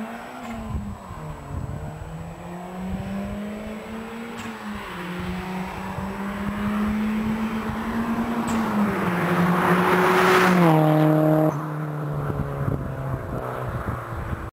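Modified turbocharged Toyota Glanza with aftermarket exhaust driving past at speed: the engine note climbs steadily in pitch and loudness as the car approaches under acceleration, peaks with a loud hiss about ten seconds in, then drops in pitch in two steps and falls away suddenly near the end as the car goes by.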